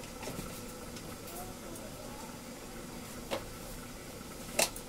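Low steady room tone with two short clicks near the end, the second the louder: a spoon knocking against spice containers as spices are measured out.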